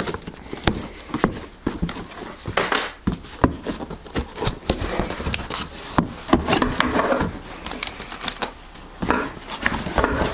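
Cardboard box being opened by hand, with brown packing paper inside rustling and crinkling and the cardboard scraping, among many sharp clicks and knocks.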